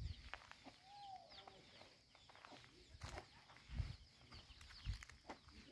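Chickens clucking faintly, with short curved calls and a few high chirps, over a few soft low thumps.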